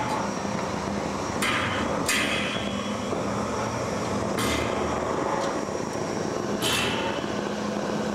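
Improvised noise-art performance sounds: a steady low hum and rumble, with short bursts of hiss about four times.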